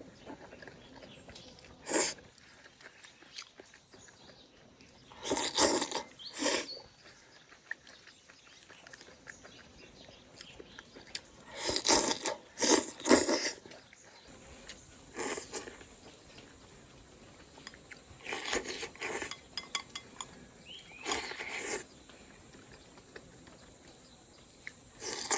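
Close-up eating sounds: bites and wet chewing of cold mixed chili peppers and eggplant with rice, in short bursts every few seconds.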